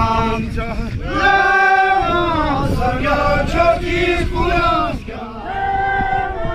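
A group of men and women chanting a Buddhist prayer in unison, with long held sung notes that slide between pitches.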